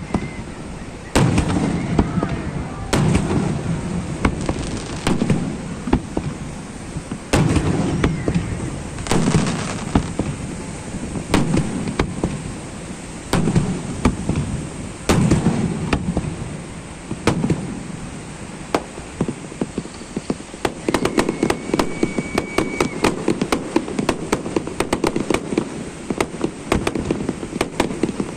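Fireworks display: shells burst in deep booms every second or two, then about two-thirds of the way through give way to a rapid run of crackling pops.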